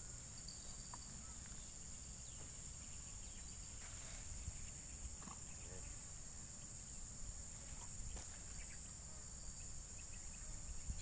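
Steady, high-pitched drone of insects over a low rumble.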